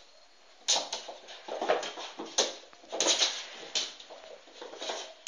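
A cat playing on a wooden floor, with a run of short, sharp sounds, about eight over five seconds.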